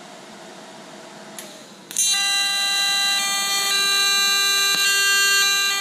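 Lincoln Electric Aspect 230 AC TIG welding arc, struck about two seconds in and then holding a loud, steady, high-pitched buzz, with the AC frequency turned up to its 400 Hz maximum.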